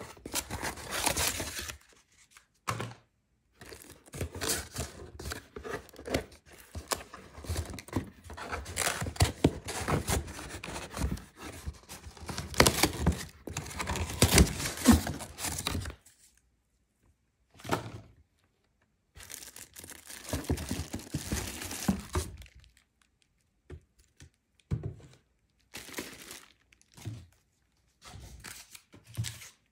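Cardboard packaging handled by hand: cardboard inserts scraping, rustling and tearing, with occasional thunks, dense for about the first half and then in short bursts with pauses. Near the end, plastic wrap crinkles as the wrapped cooker body is lifted out.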